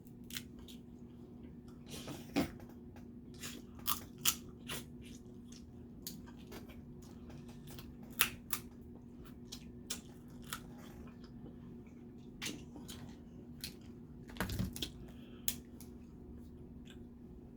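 Snow crab leg shells being cracked and picked apart for the meat, with chewing: scattered sharp cracks and clicks, the biggest about two seconds in and a cluster around fourteen and a half seconds. A faint steady hum runs underneath.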